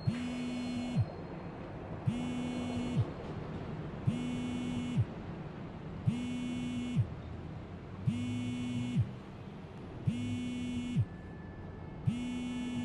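A low electronic buzzing tone pulses on and off, about one second on and one second off, seven times. Each pulse drops in pitch and clicks as it cuts off, over a steady background hiss.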